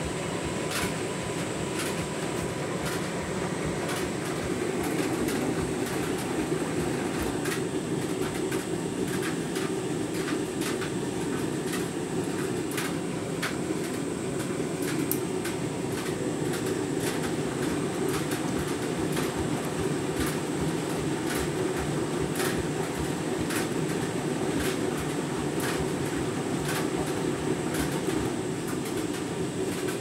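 Candy Grand'O Vita 7 kg front-loading washing machine tumbling a half load in rinse water on a deep-rinse cycle: a steady churning of the turning drum with water sloshing and frequent light clicks.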